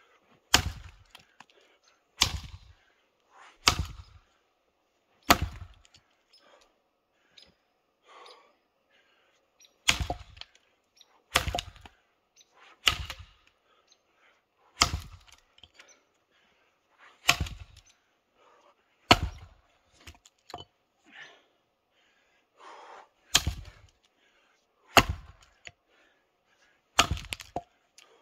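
Tuatahi work axe chopping into a 14-inch sugar maple log that is old, semi-dry and partly frozen: about a dozen sharp strikes, roughly one every second and a half, with a pause of several seconds after the fourth.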